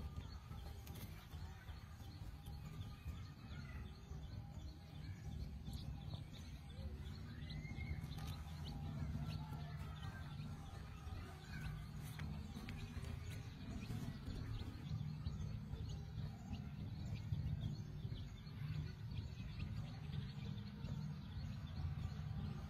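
Outdoor ambience: a steady low rumble with faint bird chirps now and then.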